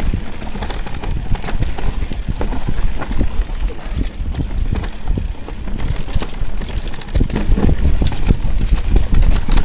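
E-mountain bike riding down a rough trail: a constant heavy rumble, with many sharp knocks and rattles as the bike goes over bumps.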